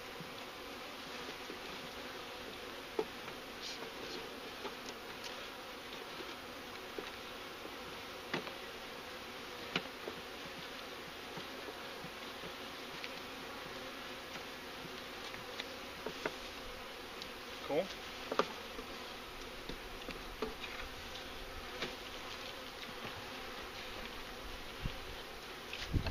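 Honeybees from an opened package buzzing as a steady, dense hum, with a few light clicks and taps scattered through it.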